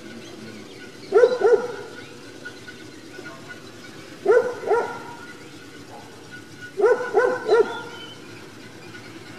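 A dog barking in short groups: two barks, then two more about three seconds later, then three near the end.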